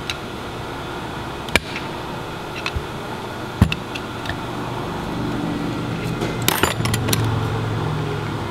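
Sharp metal clicks and taps as a screwdriver works the carbon brushes and brush springs on the end plate of a Lucas M35G starter motor, a handful of single clicks spread out and then a quick cluster near the end as the end plate is handled, over a steady background hum.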